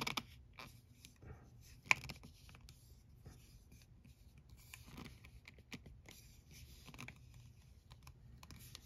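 Faint handling noise from a clear plastic Moyra Supersizer nail stamper being turned and pressed in the fingers: small scattered plastic clicks and scuffs, with one sharp click about two seconds in.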